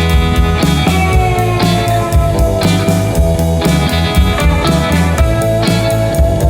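Background rock music with electric guitar, a steady beat and strong bass.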